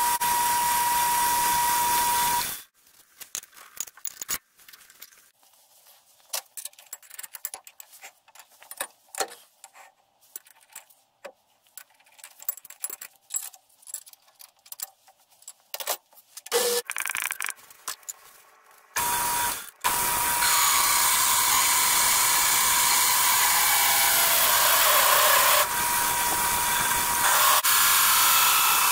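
Metal lathe running with a steady whine while center-drilling a workpiece; it stops about two and a half seconds in. Scattered metal clinks and knocks follow. About 19 seconds in the lathe starts again, drilling through the piece with a large twist drill.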